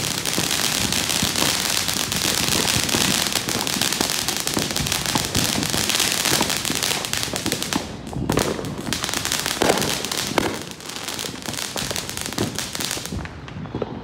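Ground fountain firework spraying sparks with a dense, steady crackling hiss. About eight seconds in it thins to scattered crackles and pops as the fountain burns down.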